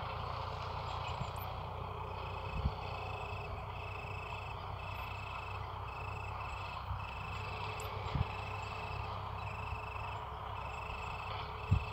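A steady low rumble with a high, thin chirp that starts about two seconds in and repeats about one and a half times a second, most likely an insect singing in the field at dusk. A few soft thumps come through.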